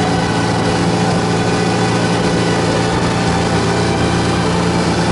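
Outboard motor running steadily at speed under the load of towing an inflatable tube, a constant low engine hum with a steady hiss of wind and rushing water over it.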